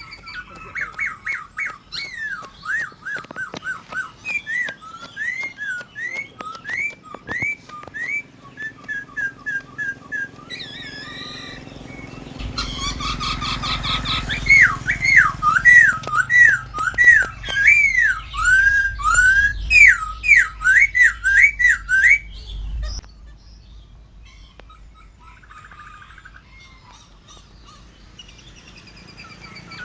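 A poksai (laughingthrush) singing: runs of quick repeated whistled notes, then a louder stretch of sweeping up-and-down whistles about halfway through, over a low rumble that stops suddenly near the 23-second mark. The song is quieter in the last few seconds.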